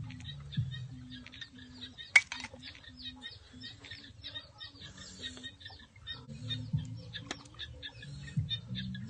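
Birds chirping in quick repeated notes, with lower calls underneath and one sharp click about two seconds in.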